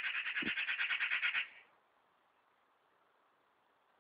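Magpie giving its harsh, rapid chattering rattle, about ten notes a second, which stops about a second and a half in: the alarm chatter that a magpie aims at a cat.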